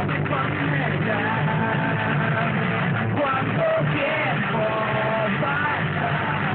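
A rock band playing live in the room, with a voice singing over guitar and drums.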